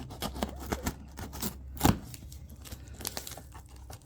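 A cardboard shipping box being opened by hand: scattered scrapes, rustles and clicks of cardboard and packing, with one louder thump about two seconds in.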